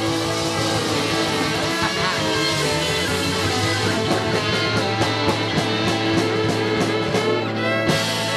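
Band music with guitar to the fore and a steady beat.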